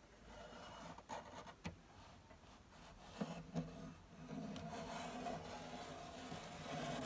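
Faint rubbing and scraping of a bent sheet-steel repair panel being fitted against a Classic Mini's floor and cross member, with a few light clicks and knocks. From about three seconds in, a low steady hum runs underneath.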